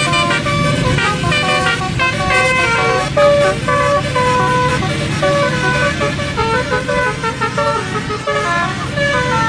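Indonesian "telolet" multi-tone bus horn playing a quick tune of short stepped notes, over the low steady running of the bus engine.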